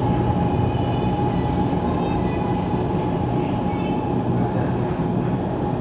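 Interior sound of a CSR Zhuzhou 'AMY' light rail car as it runs slowly along a station platform and comes to a stop: a steady rumble of the running gear with a steady high whine held throughout.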